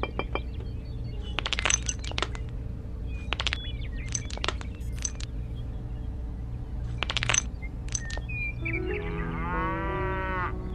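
Clusters of small hard clicks and clinks, like miniature clay bricks and pebbles being set down, over a steady low hum. Near the end a cow moos in one long call.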